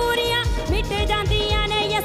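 Live worship band playing an instrumental interlude of a Punjabi worship song: a lead melody with sliding, bending notes over a quick, steady drum beat.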